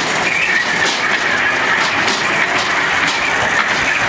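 Train running along the track, heard from on board: a steady running noise with regular clicks about twice a second and a high wavering whine.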